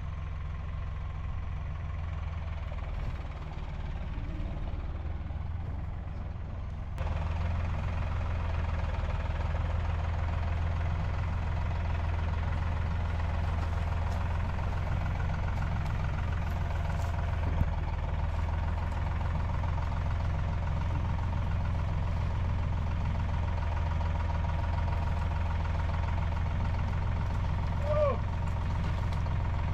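An engine running steadily with a low, even hum, getting louder about seven seconds in.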